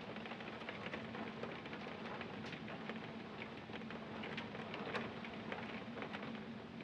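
Rain beating on a window pane, heard from inside the room: a steady hiss of rain with scattered sharp taps of drops striking the glass.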